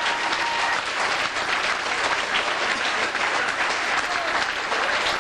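An audience applauding, many hands clapping together.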